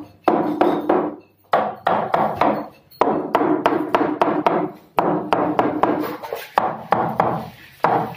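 Hammer knocking a plastic-wrapped panel into a kitchen counter's frame: quick runs of sharp blows, about five a second, each ringing briefly, broken by short pauses.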